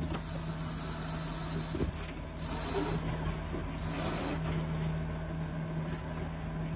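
Boat under way: a steady low hum under a rushing noise, with two brief louder swells carrying a thin high tone about two and a half and four seconds in.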